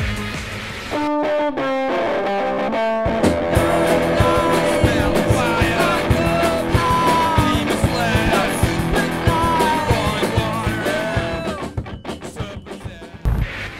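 Rock music: a few sparse guitar notes, then a full band with distorted electric guitar; it thins out near the end.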